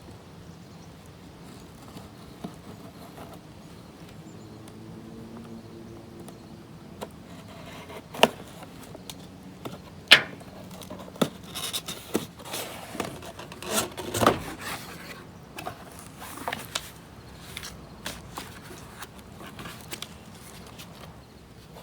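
Plastic film and cardboard packaging of a phone box being cut, torn off and handled: scattered scrapes, rubs and crinkles, with sharper snaps and tears clustered in the middle.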